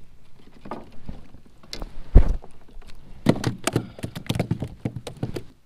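Handling noise while fighting and landing a small hooked fish from a plastic kayak: one heavy thump about two seconds in, the loudest sound, then a quick irregular run of clicks and knocks.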